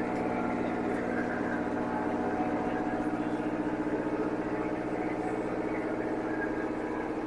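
Riverboat's engine running with a steady, even hum while the boat manoeuvres alongside another vessel to moor.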